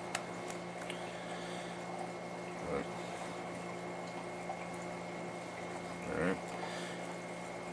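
Quiet room tone: a steady low electrical hum and hiss, with a single light click at the very start and a couple of faint, brief handling sounds later on.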